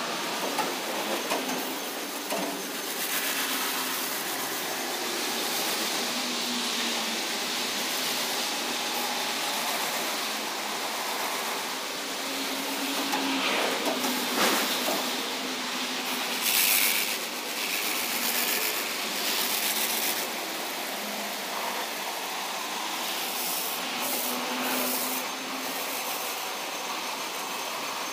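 Bolanke rollover car wash machine running, its big rotating brushes working over a car with a steady hiss of water spray. A low motor hum comes and goes, and there are a few louder bursts of hiss.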